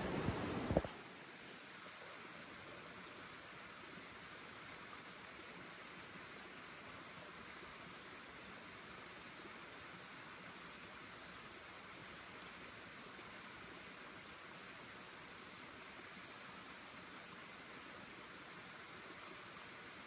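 Steady, high-pitched drone of insects in a cloud forest, over a faint even hiss. A louder rushing noise fills the first second and cuts off abruptly.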